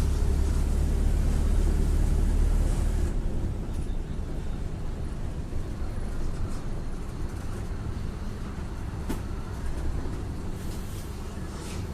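Mercedes-Benz OF-1721 Bluetec 5 bus's four-cylinder diesel engine running, strong and deep at first, then dropping to a quieter, lighter run about three seconds in. A single sharp click about nine seconds in.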